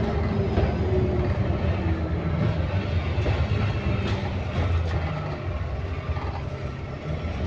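Interior of an ADL Enviro400MMC double-decker bus on the move: a steady diesel engine and drivetrain drone with light rattles and knocks from the bodywork. The level eases a little about six seconds in, then picks up again near the end.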